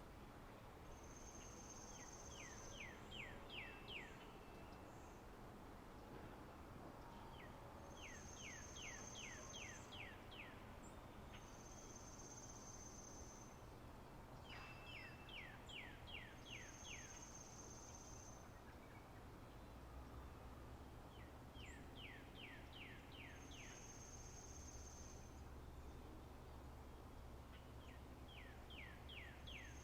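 Faint spring meadow ambience: a bird repeats a short song every few seconds, a quick run of down-slurred notes with a thin high steady note, over soft background hiss.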